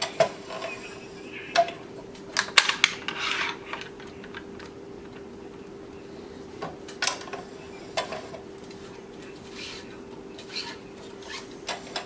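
Tennis racquet being strung on a stringing machine: a string of sharp clicks and clacks from the machine's clamps and tensioner, with the rubbing rasp of string being pulled through the frame about three seconds in. A steady faint hum runs underneath.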